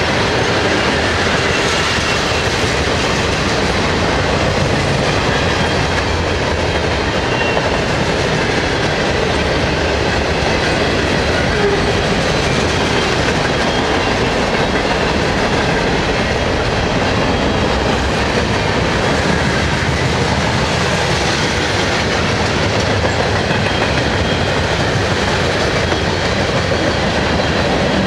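Freight cars of a long mixed freight train (tank cars, gondolas, coil cars) rolling past close by at speed: a steady, loud rumble and clatter of steel wheels on the rails.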